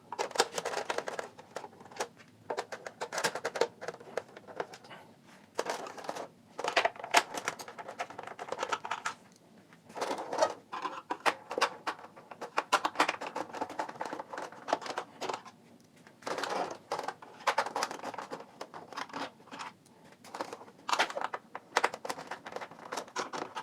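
The six case screws being unscrewed from the plastic cabinet of a Philips AZ1047 CD/cassette sound machine: irregular clicks and short scratchy bursts of the screwdriver working in the screws and the set being handled.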